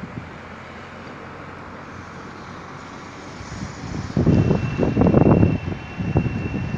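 Wind buffeting a phone microphone outdoors: a steady low rush, then from about four seconds in a loud, choppy rumble of gusts.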